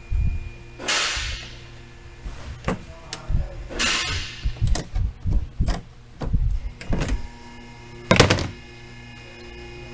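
Plastic engine-bay trim panels being unclipped and pulled off by hand: a run of clicks, knocks and scraping rustles, with the loudest knock about eight seconds in.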